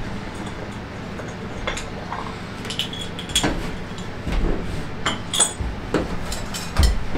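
Metal hand tools clinking and knocking as they are handled, some strikes ringing briefly, with a few low thumps in the second half over a steady background hiss.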